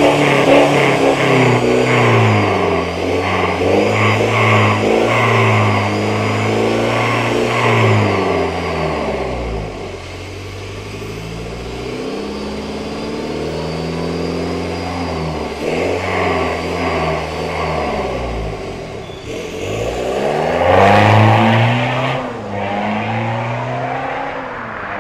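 Jaguar XE's 2.0-litre four-cylinder turbodiesel, fitted with a tuned aftermarket exhaust, revved repeatedly while standing, the pitch rising and falling with each blip. Near the end the car pulls away with a loud rising rev.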